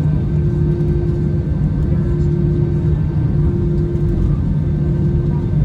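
Cabin noise inside an Airbus A321-211 airliner: a steady, loud rumble of its CFM56 jet engines and airframe, with a low hum. A higher tone keeps breaking off and returning about once a second.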